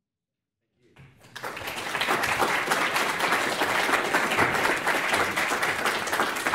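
Audience applauding, starting about a second in and swelling quickly to a steady, dense clapping.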